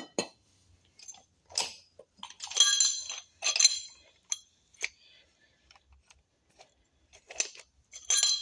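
Steel parts clinking and knocking together in a string of separate strikes as a removed wheel bearing and its hardware are handled. Some strikes ring briefly; the loudest come about three seconds in and near the end.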